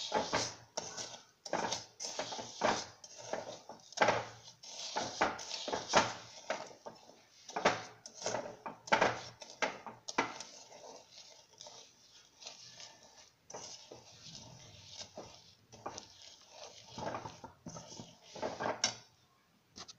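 Metal spoon scraping and stirring melting sugar around a metal pan, in repeated strokes about two a second, lighter for a few seconds midway. The sugar is being melted down for peanut chikki.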